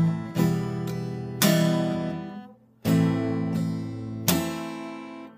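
Acoustic guitar strummed slowly to show a song's strumming pattern. There are about five separate strokes, and each chord rings on and fades before the next, with a brief pause where the strings go quiet about two and a half seconds in.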